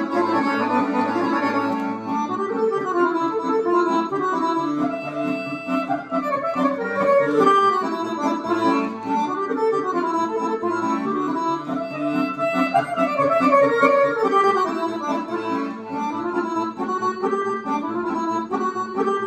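Dallapè accordion playing a fast kolo dance tune solo: a quick running melody over a steady rhythmic bass-and-chord accompaniment.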